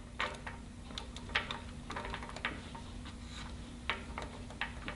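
Faint, irregular metallic clicks of a hex key working a rocker arm's adjusting screw, turning it down to take out the lash until there is no up-and-down play. A faint steady hum underneath.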